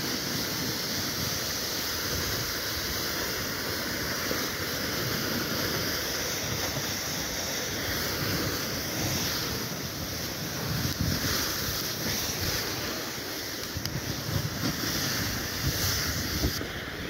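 Snow sled sliding fast down a packed snow run: a steady hiss and scrape of the sled over the snow, mixed with wind rushing over the microphone, with a few uneven knocks over the second half.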